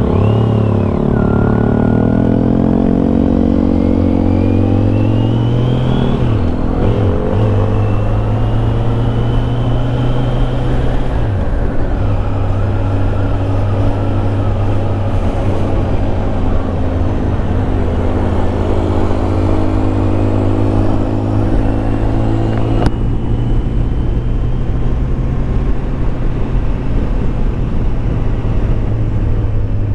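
Kawasaki Z900 SE inline-four engine running under way, heard from the bike while riding, over a steady rush of wind and road noise. Its pitch dips and rises a few times in the first dozen seconds, then holds steady at cruise.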